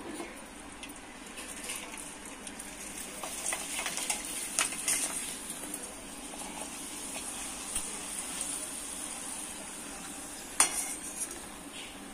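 Rice papad deep-frying in hot oil in a steel pan: a steady sizzle as it puffs up, with a slotted steel spatula scraping and clinking against the pan, one sharper clink about ten and a half seconds in.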